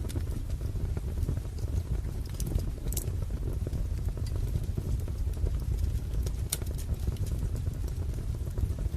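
Wood fire burning in a fireplace: a steady low rumble with scattered sharp crackles and pops, the sharpest about three seconds and six and a half seconds in.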